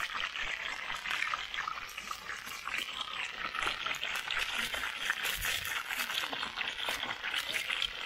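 Trout pieces frying in hot oil in a pan, a steady sizzle full of small crackles and pops.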